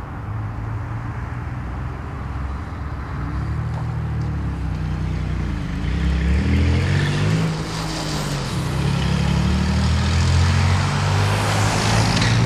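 Road traffic: car and truck engines running and passing, their pitch rising and falling, louder in the second half.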